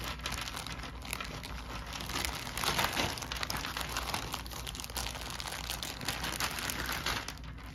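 Plastic bag crinkling and rustling as a bag of small plastic figures is rummaged through, with many small clicks.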